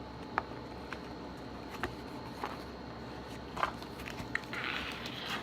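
Handling of books and paper packaging: scattered light taps and clicks, with a brief papery rustle about four and a half seconds in.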